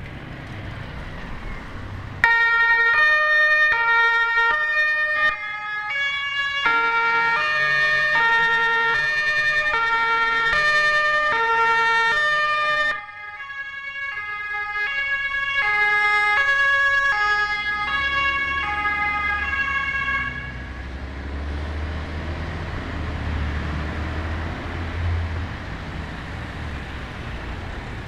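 German two-tone fire-brigade siren (Martinshorn) on a MAN fire-service bus. It switches on suddenly about two seconds in and alternates between a high and a low tone, each held for well under a second, with a short break about halfway. It stops a little after two-thirds of the way through, and the bus's engine rumbles low as it pulls away.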